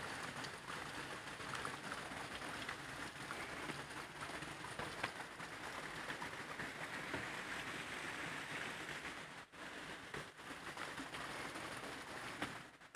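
Stream water trickling and splashing among rocks: a steady watery hiss with small drips and clicks, briefly fading about nine and a half seconds in.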